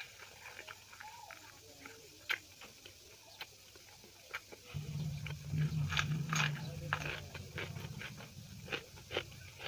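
Close-up eating sounds: wet mouth clicks and smacks of chewing, growing louder and busier in the second half. A low hum comes in about halfway.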